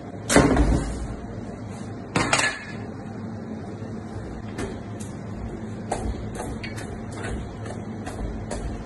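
A large curved blade chops through a whole pumpkin with a loud thwack just after the start, and a second loud knock follows about two seconds later. After that come light ticks and scrapes of a knife working in the pumpkin's flesh, over a steady low hum.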